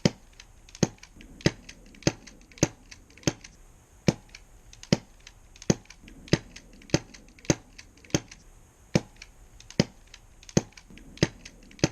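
Airsoft gas-blowback pistol fitted with a silencer firing a steady string of single shots, about one every two-thirds of a second, each a sharp crack with the slide's clack, still a little noisy despite the silencer.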